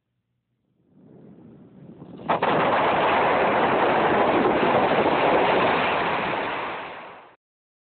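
Large multi-hole production blast in a surface mine: a faint rising rush, then a sharp crack about two seconds in that opens into a rapid run of detonations merging into one continuous, dense noise for about five seconds, which then cuts off.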